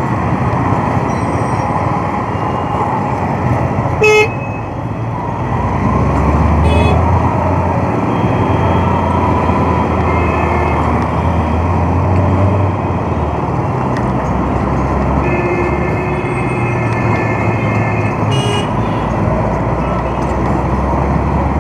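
Steady low rumble of a motorcycle riding slowly through city traffic, with vehicle horns honking: a short, loud honk about four seconds in, another brief one near seven seconds, and a longer held honk in the second half.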